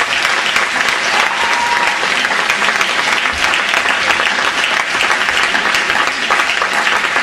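Audience applauding, many hands clapping at once in a steady, dense patter.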